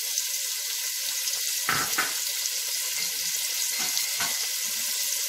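Chopped onions frying in hot oil in a pan: a steady sizzling hiss with scattered small crackles. A brief knock about two seconds in.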